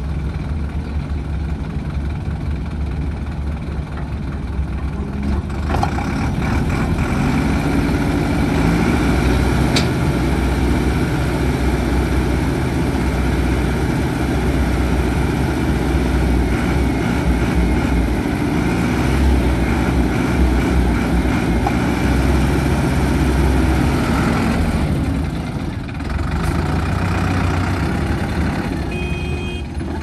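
Heavy construction machinery's diesel engine running steadily, working harder from about six seconds in and easing off briefly near the end.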